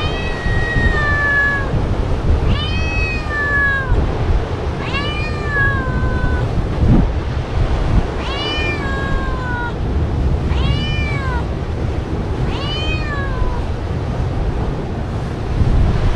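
An animal calling six times, about every two seconds; each call is drawn out and arches, then falls in pitch. Steady low wind-like noise runs underneath.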